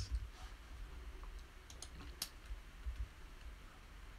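A few faint, separate clicks of computer keys, mostly about two seconds in, over a low steady hum.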